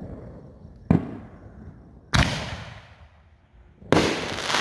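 Consumer fireworks going off: three sharp bangs, roughly a second or two apart, each trailing off in a hiss. The last bang is the loudest and its hiss lasts longest.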